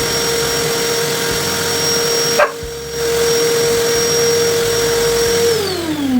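Vacuum cleaner motor running with a steady whine, briefly interrupted about two and a half seconds in, then switched off near the end, its pitch falling as the motor spins down.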